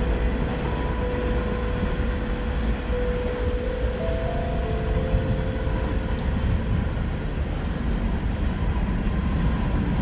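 A passing train makes a steady low noise throughout, while a few steel tongue drum notes are struck one after another and left ringing over it.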